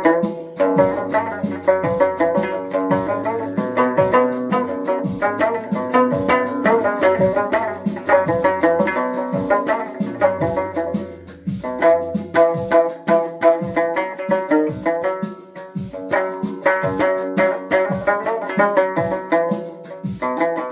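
Music: a fast, steady drum beat under a pitched melody, dipping briefly twice.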